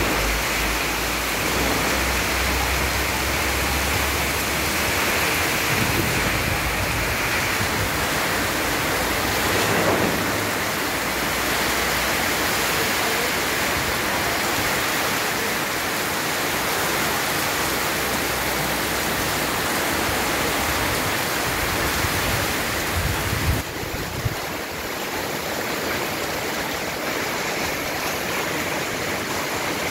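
Heavy rain pouring down steadily, a dense even hiss, with low gusty rumbling from the wind through most of it. Two brief knocks come about three quarters of the way through.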